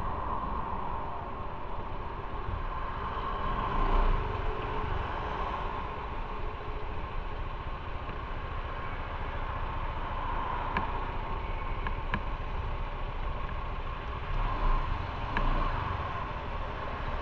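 Motorcycle running along the road, a steady drone of engine and road noise that swells briefly about four seconds in and again near the end.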